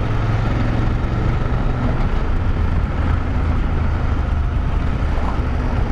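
BMW F850GS Adventure's parallel-twin engine running steadily at cruising speed on a dirt road, mixed with steady wind and tyre noise.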